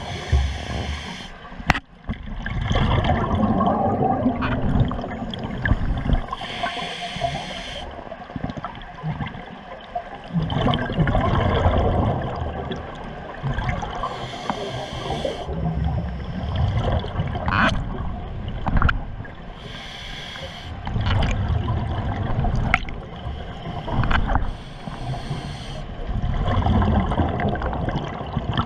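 A scuba diver breathing through a regulator underwater: a short hissing inhale every five to seven seconds, each followed by a longer gurgling rush of exhaled bubbles.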